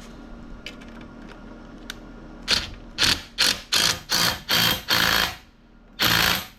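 Impact gun hammering in about seven short bursts, then one more near the end, tightening a nut on the anchor's shank-to-fluke bolt. Light clicks of the wrench and nut come before the bursts.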